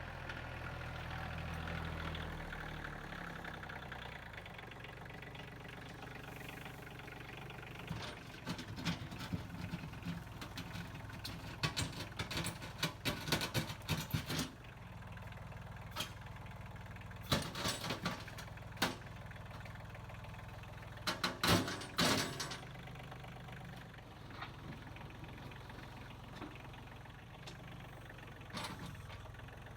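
A machine engine idling steadily throughout, with several bursts of clattering knocks as wooden sawmill slabs are tossed down onto the muddy road.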